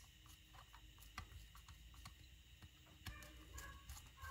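Near silence with faint, scattered ticks and clicks of small metal parts being handled on a Weber 44 IDF carburetor during reassembly.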